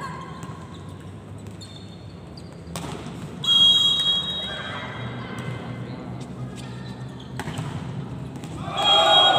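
Referee's whistle blown twice, a high shrill blast about three and a half seconds in and another near the end, over volleyball hits and players' voices echoing in a large sports hall.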